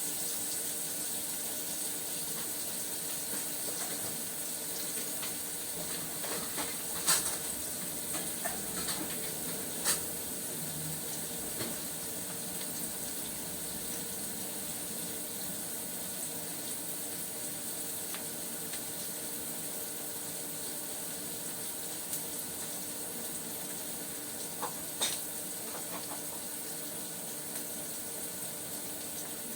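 Food sizzling as it fries in a pan: a steady hiss, broken by a few sharp clicks about seven and ten seconds in and again near the end.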